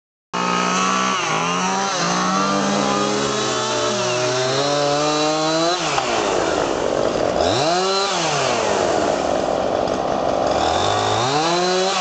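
Gasoline chainsaw cutting into a standing tree trunk, running at high revs. About six seconds in the engine pitch drops, then rises and falls briefly around eight seconds, and climbs again near the end.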